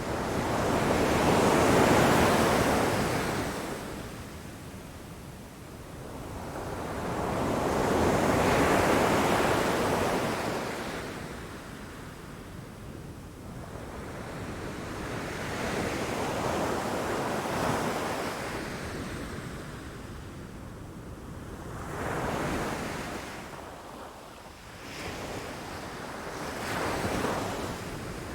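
Ocean waves breaking against rocks and the shore, each wave swelling into a rushing crash and draining away, one every five to seven seconds. The first two waves are the loudest, the later ones shorter and weaker.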